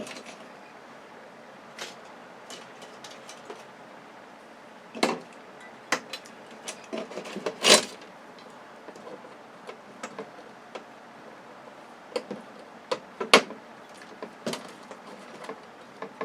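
Scattered clicks, taps and knocks of television parts and tools being handled during disassembly, the loudest knock a little before the halfway point.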